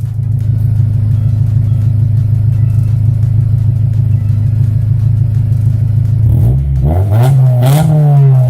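Acura Integra's four-cylinder engine idling steadily through its exhaust, then revved about six seconds in, the pitch climbing and falling.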